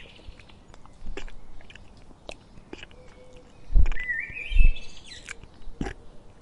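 Giraffe chewing and working its tongue and lips, with scattered short wet clicks. A small bird sings a rising twittering phrase about four seconds in. A few low thumps come in the second half and are the loudest sounds.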